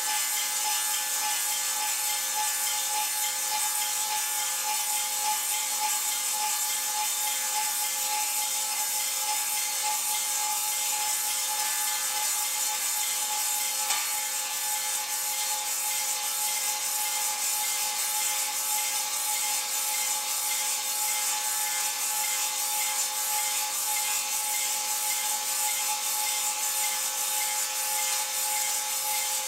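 Table saw blade cutting a square-shoulder tenon on a log that the Tenonizer TC 300 attachment turns and feeds against it. It is a steady machine tone over an even hiss of wood being cut, unbroken throughout.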